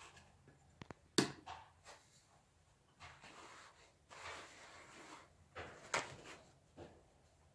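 Wood being handled on a hard surface: a few sharp knocks, the loudest just after a second in, then rubbing and scraping with lighter knocks.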